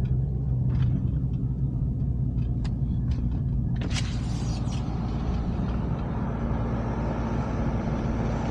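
Truck driving on a rough road, heard from inside the cab: a steady engine and tyre drone with a few light clicks. About four seconds in there is a sudden rush of hiss, and the road noise turns louder and rougher.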